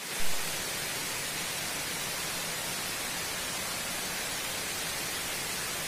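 Steady, even hiss with no distinct events, and one brief louder sound just after the start.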